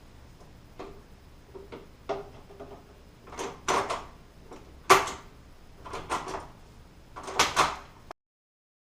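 Clicks and clacks of a door knob and privacy lock being handled, in separate knocks about a second or so apart, the sharpest about halfway through. The sound cuts off suddenly near the end.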